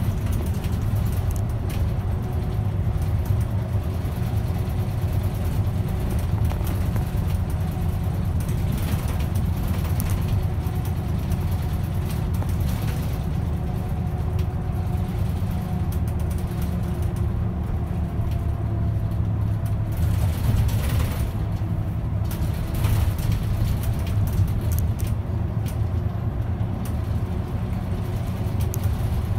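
Route bus running along the road, heard from inside the cabin: a steady low engine and road drone with an occasional brief rattle or knock.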